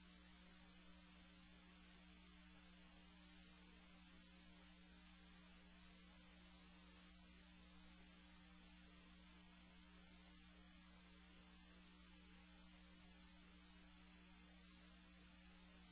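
Near silence: a faint steady electrical hum with a low hiss.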